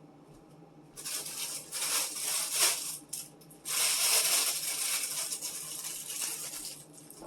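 Plastic packaging rustling and crinkling as food is handled, starting about a second in, breaking off briefly near the middle, then going on again.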